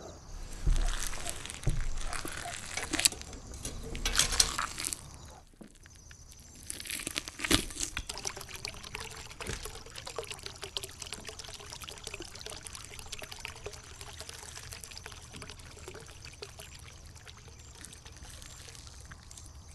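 Liquid pouring and trickling, loud and irregular for the first few seconds, then settling into a steady, fine trickle.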